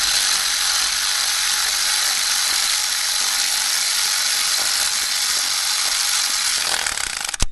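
Power ratchet running steadily as it drives in the bolts of the rear main seal housing on a 6.0 V8, then stopping abruptly near the end.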